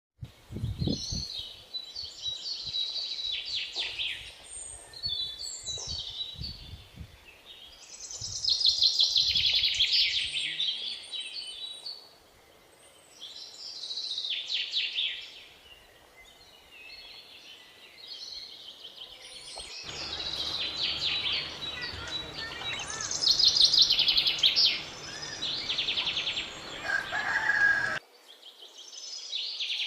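A bird calling in repeated bursts of rapid, high-pitched notes, a phrase every few seconds. From about two-thirds of the way in a steady low hum runs under the calls, then cuts off abruptly near the end.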